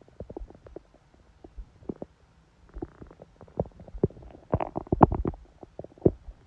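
A woman's stomach growling during menstruation: an irregular run of short gurgles and pops. They grow denser and louder a little past the middle, with one more loud pop near the end.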